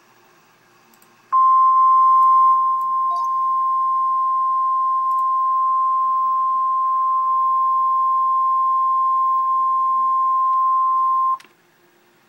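Emergency Alert System attention signal of the NOAA Weather Radio kind: a single steady 1050 Hz alarm tone that starts about a second in, holds for about ten seconds and cuts off suddenly. It announces that a special marine warning follows.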